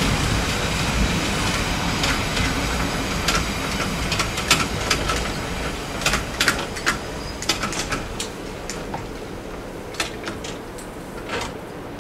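A Matterhorn Gotthard Bahn train running on the track, its low rumble slowly fading as it moves away. Through the middle and later part there is a scatter of sharp clicks and clacks from the wheels on the rails.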